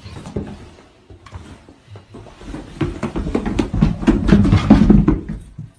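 A pet clattering down a staircase: a rapid run of thumps and knocks that builds over the last few seconds, then stops.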